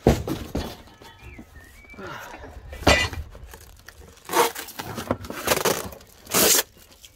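Handling noise from unpacking a satellite dish kit: parts knocking together and packaging rustling, in half a dozen separate bursts, the last a rustle about half a second long.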